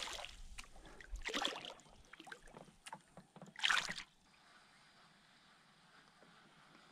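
A hooked fish thrashing and splashing at the surface right beside a canoe, in bursts about a second and a half in and again near four seconds, with small knocks and drips between. The sound then cuts off abruptly to a faint steady hiss of wind and water.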